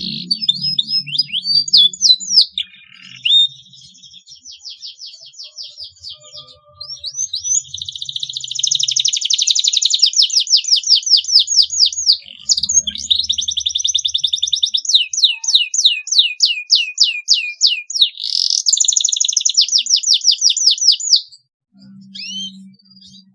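Domestic canary singing: long, loud, high rolling trills of fast repeated notes, with a brief break about halfway through. The song stops a couple of seconds before the end, leaving a few faint chirps.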